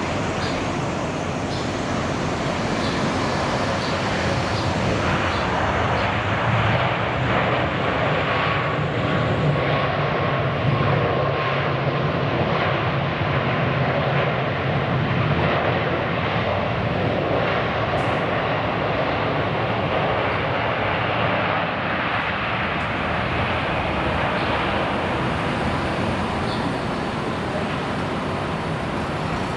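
Jet engine noise of a landing Boeing 777-200ER during its rollout: a steady rush that swells a few seconds after touchdown, with a faint falling whine, and eases off over the last several seconds as the airliner slows on the runway.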